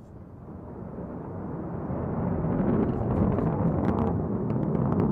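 Blue Origin New Shepard rocket's BE-3 liquid-hydrogen engine during ascent: a deep, even rumble that grows steadily louder, with sharp crackling pops joining in about halfway through.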